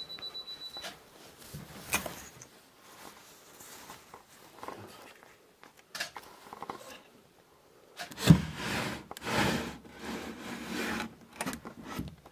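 Old wooden chest of drawers being handled: a couple of sharp knocks, then, about eight seconds in, a drawer dragged open, wood scraping on wood in several rubbing strokes.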